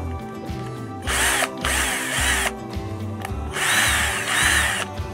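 A 12-volt cordless drill/screwdriver's motor runs in several short bursts. Each whine rises in pitch and falls away again as the trigger is squeezed and let go.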